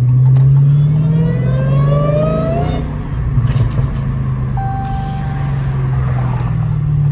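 Dodge Challenger Hellcat Redeye's supercharged HEMI V8 pulling under acceleration, a rising whine for about three seconds before it eases off and settles into a steady cruise.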